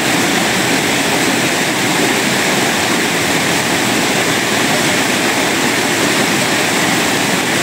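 Steady rushing of fast-flowing water, loud and even throughout.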